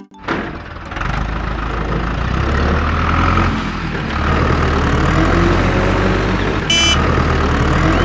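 Vehicle engine running steadily with a deep rumble, starting abruptly, with a short high beep about seven seconds in.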